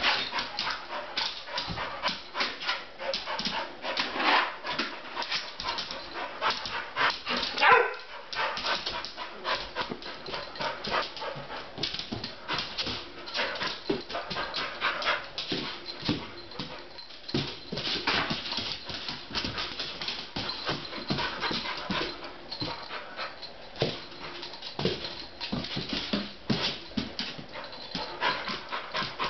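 A puppy's claws clicking and scrabbling fast on a ceramic tile floor and against a refrigerator door as she pounces and jumps after a laser dot. About a third of the way through, one short whine is the loudest sound.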